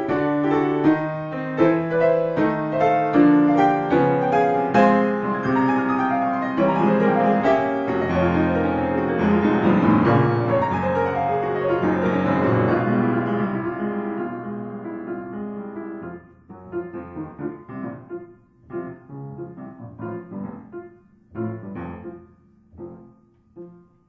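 Solo piano music: a busy, full passage that thins to sparse, separate notes with short pauses in the last third.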